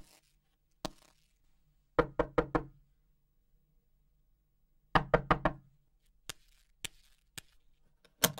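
Knuckles knocking on a wooden door: two quick sets of four raps, about three seconds apart, followed by a few faint single clicks near the end.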